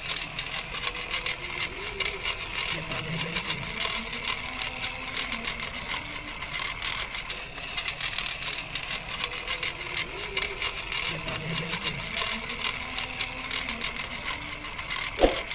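Small DC motor driving a miniature juicer through a crank linkage, running steadily with a fast clicking rattle as it crushes pomegranate arils.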